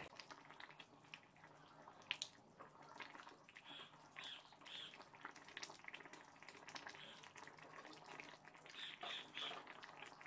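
Very faint sounds of a wooden spatula stirring a simmering milk-and-curd mutton gravy in a kadai: soft scrapes and wet movement, a sharper click about two seconds in, and a few small ticks.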